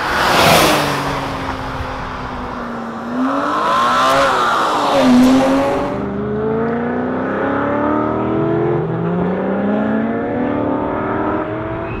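E36 BMW M3's straight-six engine revving hard under acceleration, its pitch climbing through each gear and dropping at the shifts. A close pass-by rushes past about half a second in.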